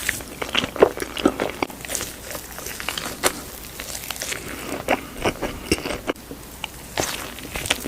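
Close-miked biting and chewing of crunchy food: irregular crisp crunches and crackles, several loud bites among softer chewing.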